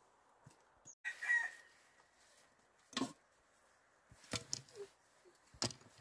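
A chicken calls once, briefly, about a second in, followed by three sharp knocks spread over the next few seconds.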